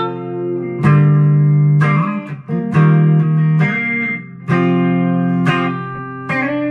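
ESP LTD EC-256 electric guitar played through a Line 6 Spider V 60-watt amp: chords struck about once a second and left to ring, changing pitch from chord to chord.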